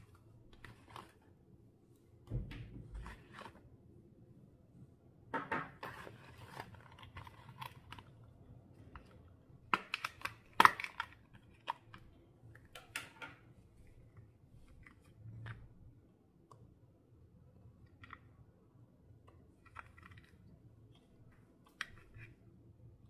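Clear slime being worked by hand: irregular sticky clicks and crackles, loudest in a cluster about ten seconds in.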